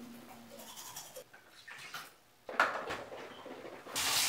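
Manual toothbrush scrubbing teeth, with a short, sudden louder burst about two and a half seconds in. Near the end a tap is turned on and water runs into the sink with a steady hiss.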